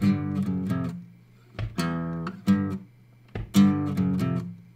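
Steel-string acoustic guitar in drop-D tuning playing the chromatic version of a riff: three short phrases of a few picked and strummed notes each, every phrase ringing out and dying away before the next.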